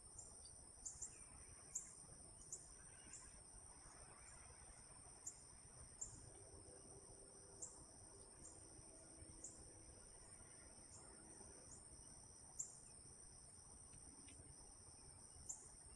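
Insects trilling in a steady, high-pitched chorus, with sharp ticks every second or two.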